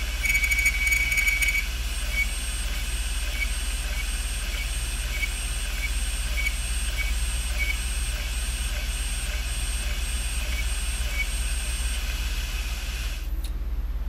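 Opened 3.5-inch Western Digital hard drive running, its motor humming with a high thin whine above it, while the heads click: a fast rattle of clicks in the first second or so, then light, regular clicks about one to two a second. It is the clicking noise of a failing drive. The whine and clicking stop about a second before the end.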